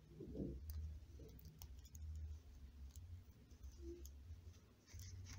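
Faint, scattered clicks of beads knocking together as a beaded piece is handled and its thread pulled and knotted, over a low handling rumble.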